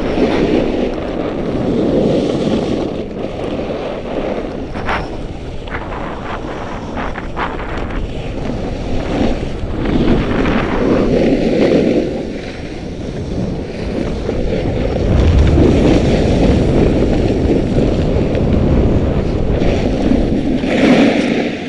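Wind rushing over the microphone of a camera skiing downhill, with the hiss of skis on snow swelling and fading through the turns. A few sharp clicks come about five to seven seconds in.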